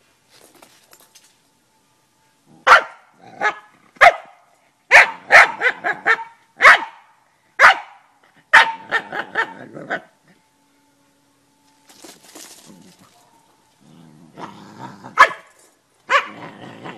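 A dog barking at a rooster in short, sharp barks: a quick run of about a dozen, a pause, then a few more near the end.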